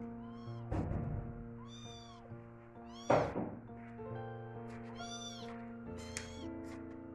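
Young kittens mewing, about four short high cries that rise and fall: the distress calls of motherless kittens. Soft piano music plays underneath, and a loud thump comes about three seconds in.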